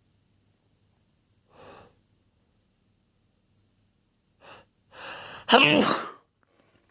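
A man's natural sneeze, one loud voiced burst about five and a half seconds in, led up to by a few short breaths.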